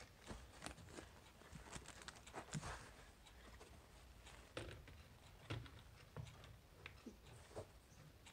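Near silence in a small room, broken by about ten faint, irregular light clicks and taps.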